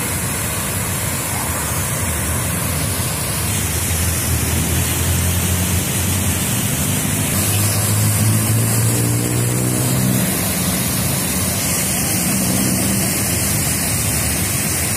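Large park fountain's water jets splashing and falling back into the basin in a steady rush, with a low engine drone from road traffic underneath, strongest in the middle.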